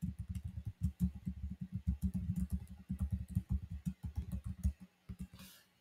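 Fast typing on a computer keyboard: a quick, uneven stream of key clicks that stops about a second before the end.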